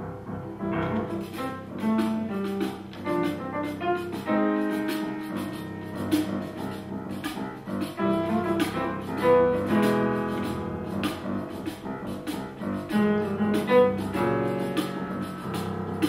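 Jazz played on grand piano: quick runs of single notes and chords.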